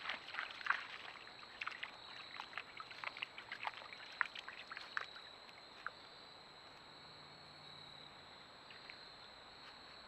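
White-tailed deer wading in a shallow creek, its hooves splashing and sloshing in the water with each step. The splashes come thick for the first five seconds or so, then thin out to an odd one and stop.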